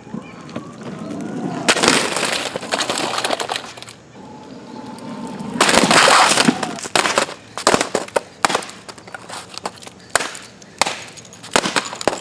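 A white plastic MacBook being broken on asphalt. Skateboard wheels rumble on the pavement, then there is a loud crunch about six seconds in as the board runs over the laptop. After that comes a run of sharp cracks and knocks as the case and screen break.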